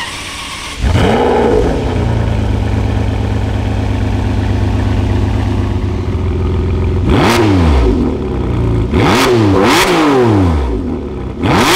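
Ferrari 599 GTB's V12 engine through its original factory exhaust: a short flare about a second in that settles to a steady idle, then revved in sharp blips, once about seven seconds in, twice in quick succession around nine to ten seconds, and once more near the end.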